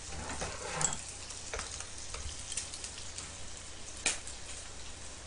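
Pork belly sizzling in a frying pan, a steady crackle with a few light clicks, the sharpest about four seconds in.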